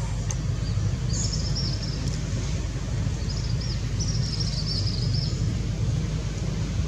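A steady low rumble runs throughout. Over it come quick runs of high chirps, about a second in and again from about three to five seconds in.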